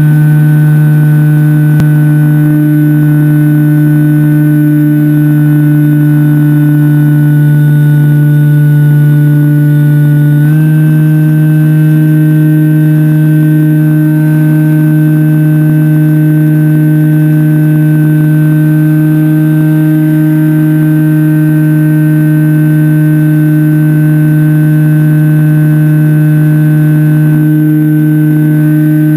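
Electric motor and propeller of a Skywalker FPV plane in flight, heard loud from the onboard camera: running at a steady throttle with one even pitch, which steps up slightly about ten and a half seconds in.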